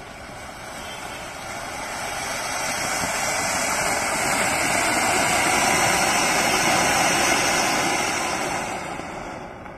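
Large matka anar, a clay-pot fountain firework, hissing as it sprays a tall column of sparks. The rush swells to its loudest about halfway through and dies down near the end as the spray weakens.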